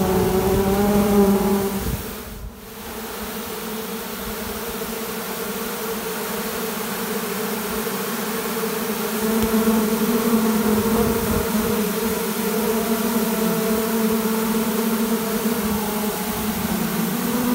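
A dense mass of honey bees buzzing close up: a steady, loud hum that dips briefly about two and a half seconds in.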